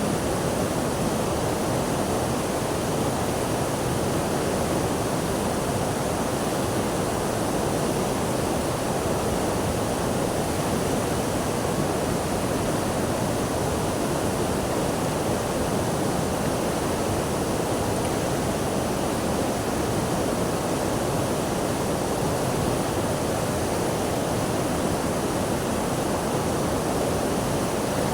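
Steady rushing water, an even wash of noise with no surges or breaks.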